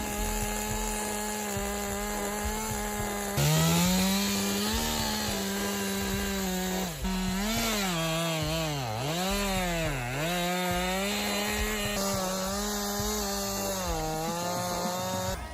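Petrol chainsaw running at high revs, then getting louder as it bites into the wood. Under load its engine pitch sags and recovers again and again, dipping deepest twice around the middle, before the sound cuts off suddenly at the end.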